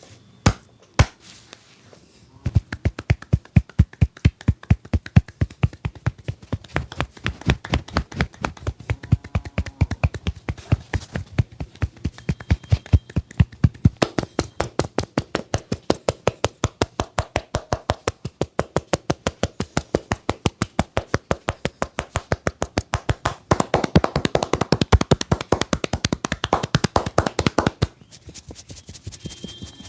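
A barber's hands tapping and slapping rapidly in a percussive massage, several even strikes a second. Two single taps come first, then the steady tapping starts a couple of seconds in, grows louder and denser near the end, and stops about two seconds before the end.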